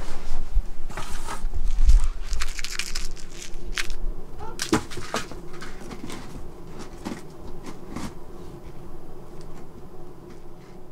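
A cat scrabbling at and leaning on a cardboard box: scratching and crackling of cardboard with dull thumps in the first few seconds, then quieter, scattered scratches as it pokes its head into a hole in the box.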